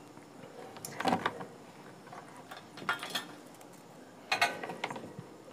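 Quiet handling noises from an induction cooktop's control circuit board as a new zener diode is fitted into it: three brief clusters of clicks and rattles, about one, three and four and a half seconds in.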